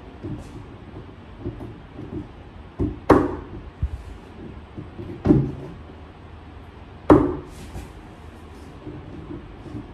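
Hammer knocking a shelf panel of a white flat-pack cabinet into place: three sharp knocks about two seconds apart, with lighter knocks and handling sounds between.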